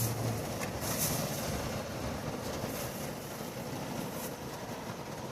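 Steady rain noise, with a few brief swishes of trading cards being slid through the hands.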